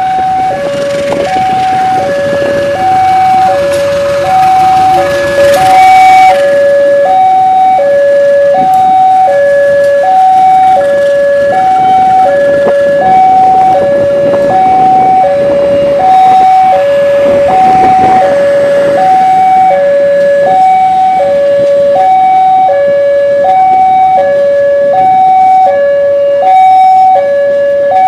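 Level-crossing warning alarm sounding continuously, alternating steadily between a high and a low tone. Under it a diesel-hauled passenger train rumbles past on the track, loudest around 5 to 6 seconds in and again around 17 to 19 seconds in.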